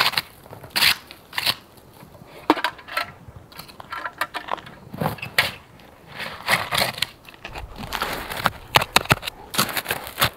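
Dry snow crunching as gloved hands scoop it up and pack it into a metal pot, in a run of irregular crunches.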